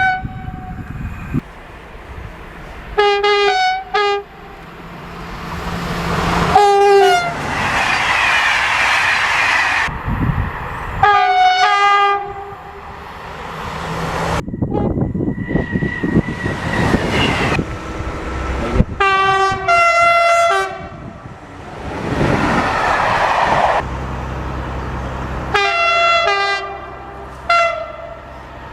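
A series of short train horn blasts from several different trains, many coming in quick pairs, each note falling slightly in pitch as it ends. Between the blasts, passing trains rush and rumble by.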